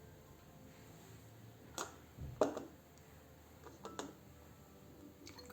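A few light, separate knocks and clicks of a small bottle and kitchenware being handled, the loudest about halfway through.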